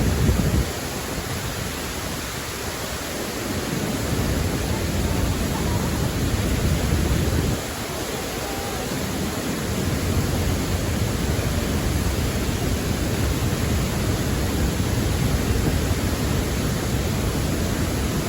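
Steady, loud roar of raging rushing water from a waterfall, an even hiss with no pitch to it. Its low rumble drops out abruptly about a second in and again near eight seconds, then returns.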